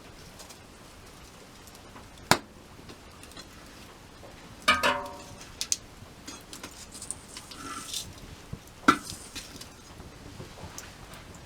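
Faint crackling and ticking of a campfire, broken by three sharp metallic knocks and clinks. The one about halfway through rings briefly, like metal cookware or a fire stand being struck.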